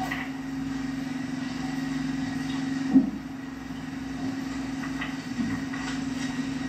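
A small engine running steadily with an even low hum, and a single sharp knock about three seconds in.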